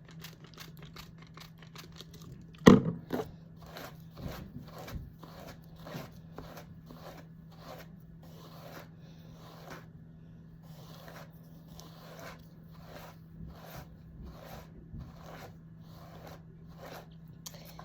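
A hairbrush being dragged through hair in quick repeated strokes, a steady run of short scratchy swishes about two or three a second, with one louder knock about three seconds in.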